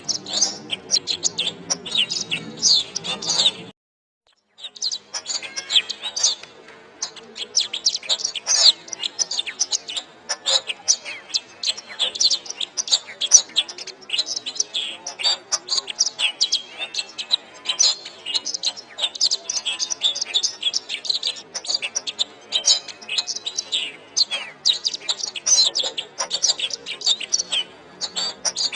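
Domestic canary singing a long, rapid run of chirps and trills. The sound drops out completely for under a second about four seconds in, then the song resumes.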